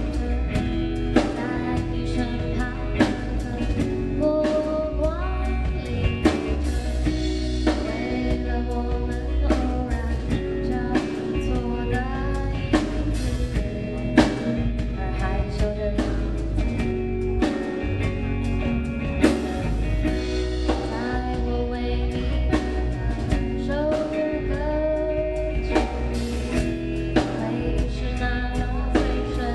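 A live rock band playing: a woman sings lead over electric guitars and a drum kit.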